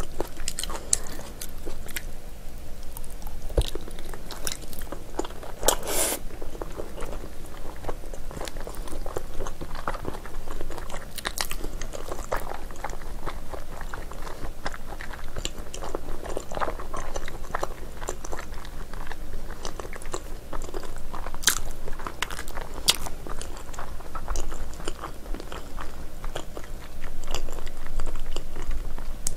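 Close-miked chewing and biting of chewy, gelatinous spicy braised ox foot, heard as a dense run of small mouth clicks with a few louder bites.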